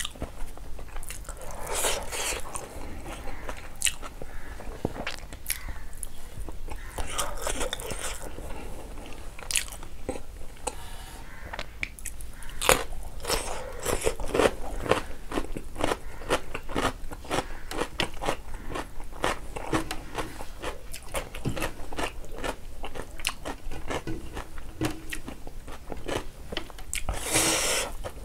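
Close-up eating sounds: chewing and biting through a mouthful of rice and pork leg curry, with many small wet mouth clicks and crunches at an uneven pace. A few longer noisy stretches come about two seconds in, around eight seconds and near the end.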